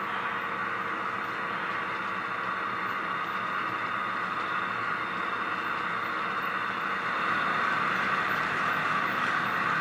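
HO scale model trains running on the layout: a steady whirring rush of wheels on track and motors, louder about seven seconds in as cars roll past close by.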